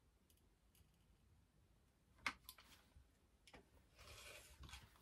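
Near silence, broken by a few faint clicks about two and three and a half seconds in and a soft scratching near the end, as a clear acrylic ruler is handled on a cutting mat and a line is marked along it with a pen.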